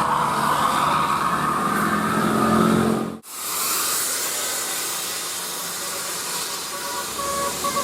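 Large bus driving past with engine and road noise. About three seconds in the sound cuts off suddenly and gives way to a steady hiss.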